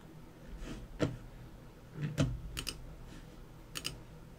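Light taps and clicks of fingers working an iPhone touchscreen while editing in iMovie: a few separate taps, two of them in quick pairs.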